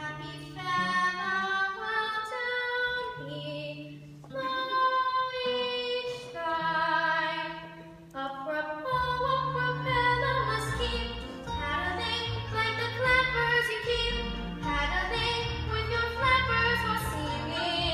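Music: a female voice sings long held notes over an accompaniment, with deeper bass notes joining about nine seconds in.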